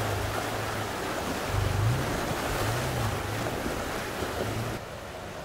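Fast-moving river water rushing around a truck fording it, with the truck's engine running low underneath, its pitch rising and dipping a little. The rush drops in level near the end.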